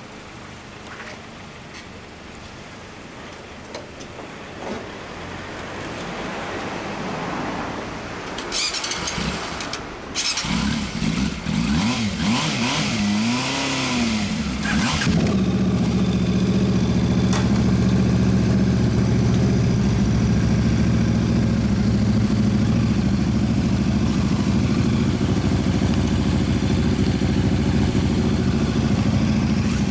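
A sport motorcycle engine starts about ten seconds in and is blipped a few times, its revs rising and falling. From about halfway it idles steadily and loudly.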